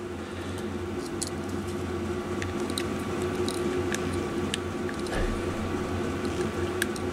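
Wire strippers working at a wire's insulation: scattered small clicks and squishy handling noises over a steady background hum.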